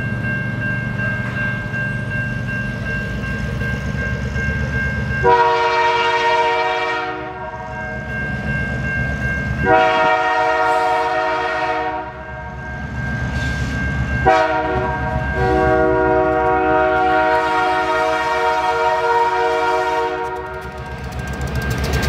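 Diesel locomotive's multi-chime air horn sounding the grade-crossing signal: two long blasts, a short one and a final long one, over the low rumble of the locomotive's engine. Wheels begin to clatter over the crossing near the end.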